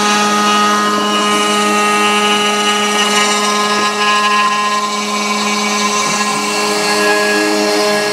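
Brushless spindle of a 3018 CNC router running steadily with a whining hum while its bit mills wood. About six seconds in, a second, lower tone joins as the machine changes its motion.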